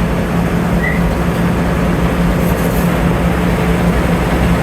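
Steady low mechanical hum of city street noise, with a single short bird chirp about a second in.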